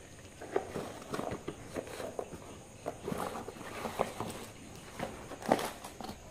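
Cardboard box flaps being opened and bubble-wrap packing handled: irregular rustles, scrapes and crackles, with a sharper knock about five and a half seconds in.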